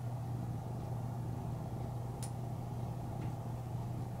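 Steady low hum over a faint even rush, with one brief sharp click about two seconds in.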